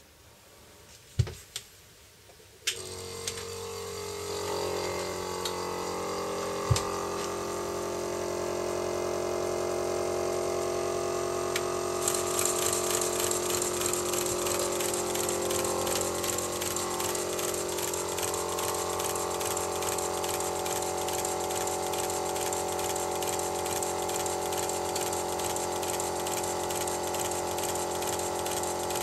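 Model of the Bavarian S 2/6 locomotive running on a test stand, its driving wheels and valve gear turning. Two sharp knocks come in the first three seconds, then a steady, hissing running sound starts and builds over the next few seconds. About twelve seconds in it turns brighter and hissier, with a fast even beat.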